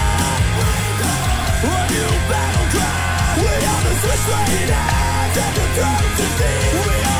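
Loud rock music with a steady driving beat, distorted guitar and vocals.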